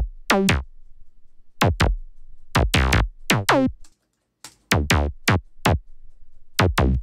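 Serum acid bass synth playing a generated melodic line of short, staccato notes, each sweeping downward in tone. Playback cuts out briefly about four seconds in and starts again with a new pattern.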